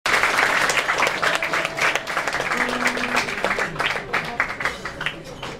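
Audience applause, a dense patter of clapping that thins out toward the end.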